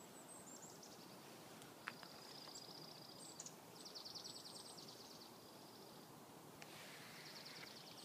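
Chickadees giving alarm calls: short high notes followed by runs of rapid, buzzy 'dee' notes, in several bouts, the strongest about four seconds in. A single sharp click about two seconds in.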